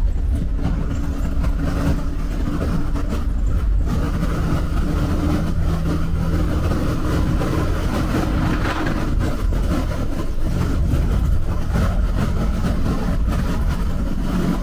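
Bus running along a highway: a steady engine drone over road rumble, with the engine note changing pitch a few times.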